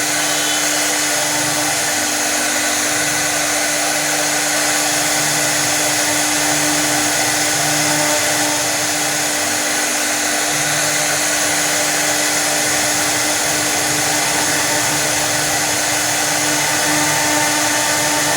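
Woodstar 1325 CNC router running steadily: an even, loud hiss with a constant hum, and a lower rumble that comes and goes.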